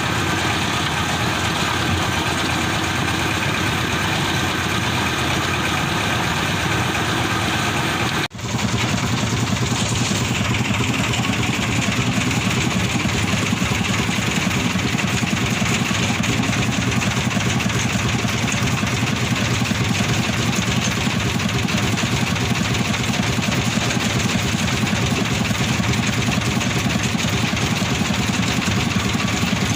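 An engine running steadily, with an even low pulsing. About eight seconds in it cuts out for an instant and comes straight back, a little deeper.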